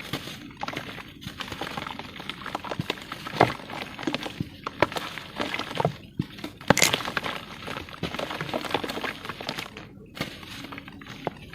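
Chunks of set cement crumbling and breaking apart in the hand: a dense, irregular crunching and crackling, with two louder snaps partway through.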